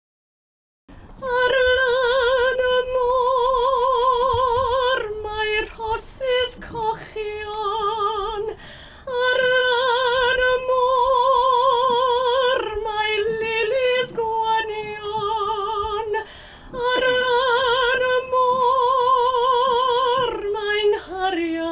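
A woman singing solo with strong vibrato, holding long notes and moving between short phrases. She starts about a second in, after a brief silence.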